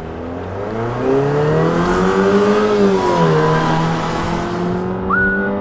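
2018 Jeep Renegade Trailhawk's 2.4-litre Tigershark MultiAir four-cylinder accelerating hard from a standstill. The engine note climbs, drops at an automatic upshift about three seconds in, then rises again.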